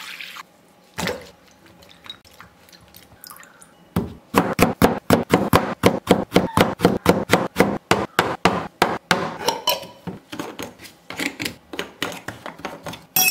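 Water poured briefly from a steel cup into a glass bowl, then a single knock. From about four seconds in, a cleaver chopping eggplant into rounds on a wooden cutting board: rapid chops about five a second, growing less regular near the end.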